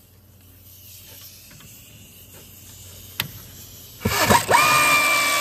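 Faint clicks of tools at the brake caliper, then about four seconds in a short clatter and a cordless power tool starting up with a steady whine, running out a brake caliper bolt on a Ford F-150's front brakes.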